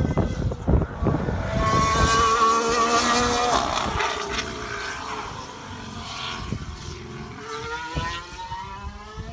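Race car engine passing on the circuit, its pitch falling about three and a half seconds in and rising again as it accelerates near the end. Wind buffets the microphone at the start.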